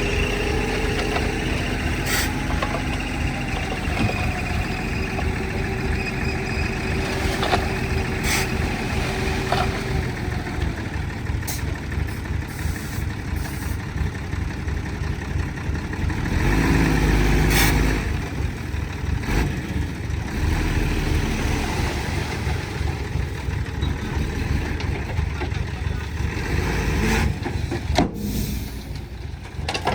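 Diesel engine of heavy earthmoving machinery running steadily, louder for a couple of seconds a little past halfway, with a few sharp metallic clanks.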